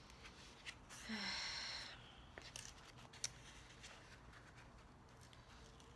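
A person's sigh, a breathy exhale lasting about a second, starting about a second in, followed by faint ticks and clicks of paper being handled.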